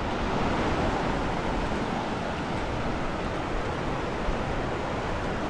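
Steady rushing of a swollen, fast-flowing river running over rocks in rapids.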